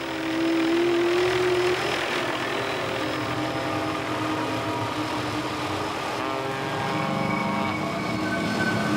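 Motorboat engine running steadily under a constant rush of water and wind, with held tones that shift in pitch every second or two.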